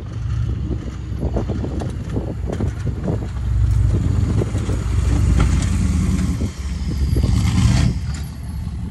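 Straight-piped 6.5 L Detroit turbo-diesel V8 of a Chevy K2500 plow truck rumbling under load as it drives past, growing louder around the middle and easing off near the end, with a faint high turbo whistle falling in pitch as it goes by.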